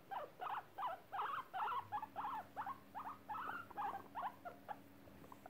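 Guinea pig squeaking in a quick run of short calls, about three a second, fading out near the end.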